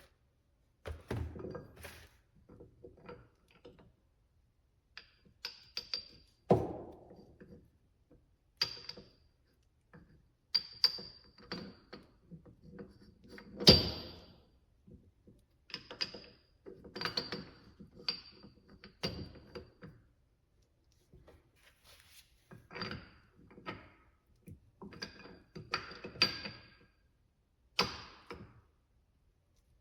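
Irregular metallic clanks and clinks with a short ringing tail, from steel press-tool parts and axle parts being handled and knocked together while a bearing press is adjusted and fitted. The loudest knock comes about halfway through.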